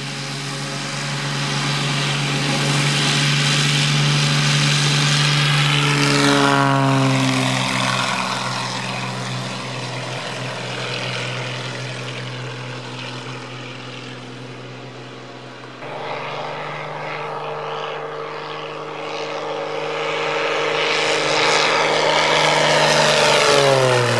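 Single-engine propeller airplane flying past low, its engine drone swelling and then dropping in pitch as it passes, about six seconds in and again near the end. The engine sound changes abruptly about two-thirds of the way through.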